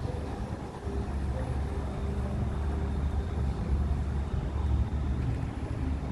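Battery-electric single-deck bus moving off and driving away: a steady low rumble with a faint steady hum over it.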